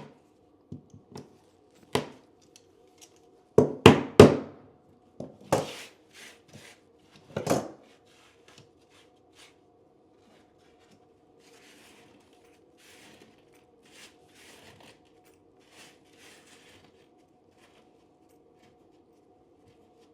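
Hand tool pulling and prying leftover staples out of a wooden subfloor: scattered sharp knocks and clicks, loudest in a cluster about four seconds in, then fainter scratching and scraping.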